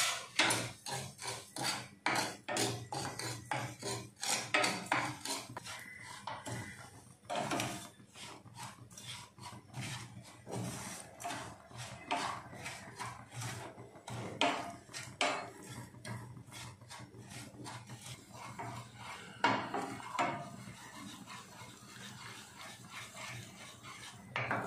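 Wooden spatula scraping and stirring granulated sugar in a stainless steel pan as the sugar melts to caramel: a long run of rasping strokes, quicker and louder in the first several seconds, then sparser and softer as the sugar turns liquid.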